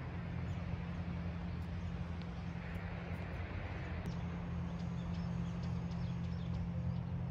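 Outdoor ambience: a steady low hum under an even background noise, with a few short bird chirps in the second half.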